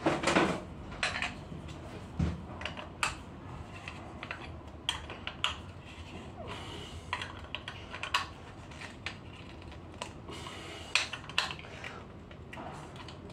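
Light clicks and knocks of small hard plastic and metal parts of a disassembled Lavazza Espresso Point capsule coffee machine being handled and set down on a workbench, irregular, roughly one a second.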